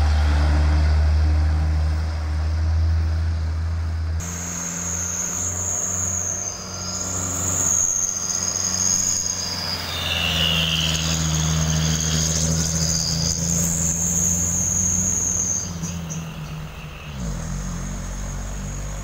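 Diesel engines of loaded Hino trucks passing close by on a hill road: a heavy truck's deep engine drone that breaks off abruptly about four seconds in, then the lighter hum of a smaller truck pulling past. A steady high buzz of insects runs above the engines.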